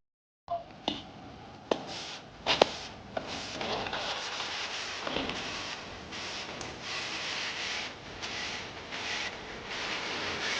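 Food-preparation handling sounds: a few sharp knocks in the first three seconds, then a steady, uneven rubbing and scraping.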